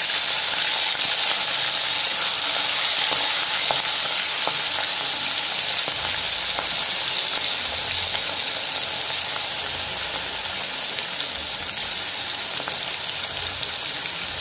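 Giant freshwater prawns deep-frying in hot mustard oil: a steady, even sizzle with a few small crackles.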